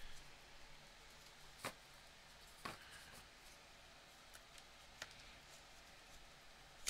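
Near silence with a few faint, short taps as a stack of baseball trading cards is handled, about one and a half, two and a half and five seconds in.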